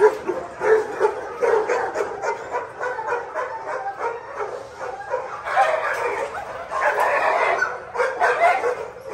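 Many kennelled shelter dogs barking, yipping and whining at once, overlapping without a pause.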